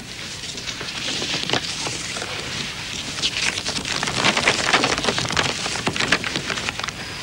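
Paper crinkling and rustling close by as a letter is taken from its envelope and unfolded: an irregular crackle that builds and is busiest in the second half.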